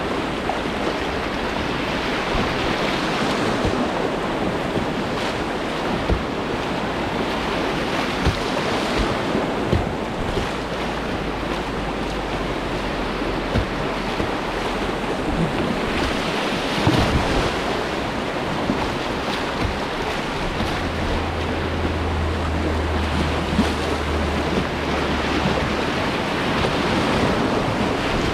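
Whitewater rapids rushing around a kayak: a steady rush of churning river water, with a few short knocks here and there.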